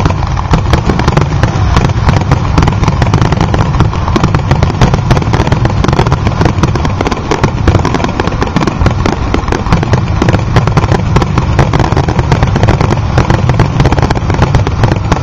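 Aerial fireworks going off in a dense, continuous barrage: many shells bursting at once, a rapid mass of bangs and crackling with deep booms underneath. It starts suddenly at the outset and goes on without a break.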